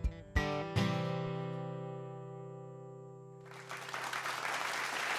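Acoustic guitar ending a song: a few last strums, then the final chord ringing out and slowly fading. About three and a half seconds in, applause starts.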